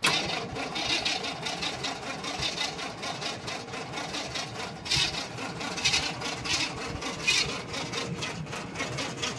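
Engine of a snowplow truck running close by, with irregular louder bursts over the steady running.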